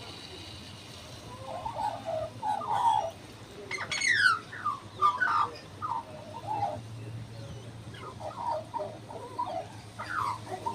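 A wild bird singing a warbling song of short phrases, some notes sliding sharply downward. It starts about a second and a half in and carries on in bursts.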